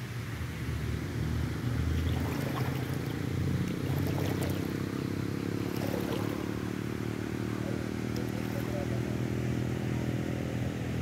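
Small boat's motor running steadily.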